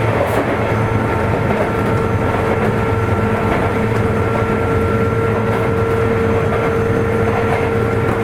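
Interior running sound of a Sotetsu 8000-series electric train's motor car, refurbished with Hitachi IGBT-VVVF control, cruising at steady speed. Continuous rail and rolling noise with a steady whine that holds one pitch.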